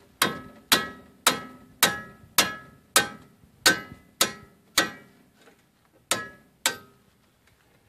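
Hammer blows on a steel socket fitted to a Dana 30 front axle hub: about eleven sharp metallic strikes, roughly two a second, each ringing briefly, with a pause about five seconds in before two final blows.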